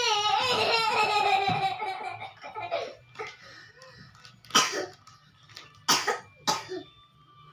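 A small child's long high-pitched vocal squeal, falling in pitch, then a few sharp coughs about halfway through and near the end. The coughing is brought on by excited play.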